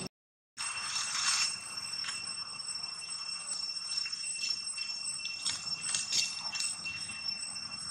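Outdoor ambience: a steady, high-pitched insect drone, with scattered rustles and clicks of dry leaves. The sound drops out completely for about half a second at the start.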